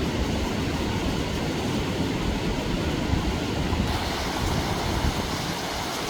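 Mountain stream water rushing and splashing over rocks, a steady full rush. Some wind buffeting on the microphone.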